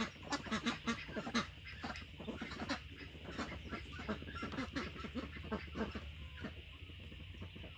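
Domestic duck quacking in a quick run of short calls that thins out after about three seconds.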